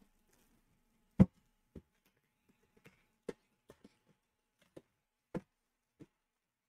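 Scattered sharp clicks and light knocks from handling a metal trading-card tin and peeling its plastic wrap, the loudest about a second in.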